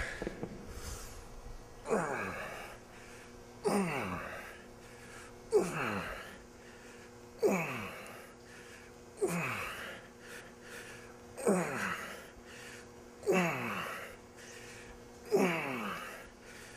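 A man's forceful, voiced exhales, one with each dumbbell rep, eight in all about two seconds apart; each starts sharply and falls in pitch.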